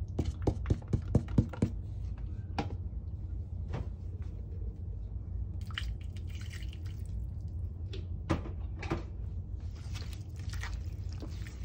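Chopped onion, ginger and garlic tipped from a plastic container into a non-stick frying pan, giving a quick run of taps and clicks in the first two seconds. Then come scattered light knocks as seasoning is shaken in, and wet squelching as a hand mixes the soy-sauce marinade, over a steady low hum.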